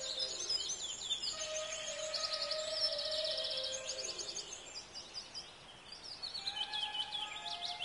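Bird-filled jungle ambience: many birds chirping, with a fast trill about two to three seconds in, over long held tones that dip in pitch as they end.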